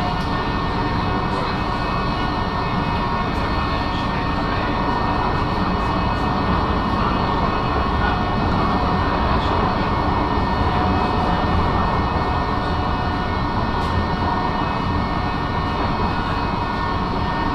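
Electric tram running along the track, heard from inside the car: a steady rumble of wheels on rail with a held whine from the drive.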